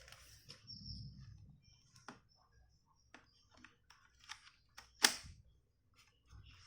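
Battery being fitted back into an Acer Aspire netbook: scattered light plastic clicks and knocks, with one much louder sharp click about five seconds in.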